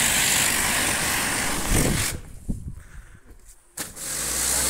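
Pressure washer jet spraying with a loud, even hiss. It cuts off about two seconds in, with a couple of dull knocks while it is off, and starts again about a second and a half later, now with a steady low hum beneath it.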